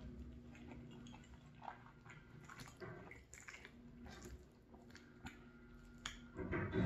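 Close-up chewing of a mouthful of cheesy penne pasta: soft, wet mouth sounds. In the second half, a few light clicks and scrapes as a plastic fork digs into the pasta in the pan, then a louder burst near the end.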